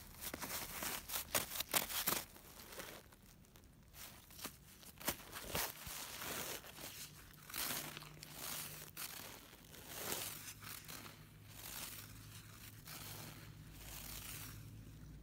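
Rolled-newspaper cat toy rustling and tearing as a cat plays with it: rapid paper crackles, densest in the first two seconds, then scattered ones.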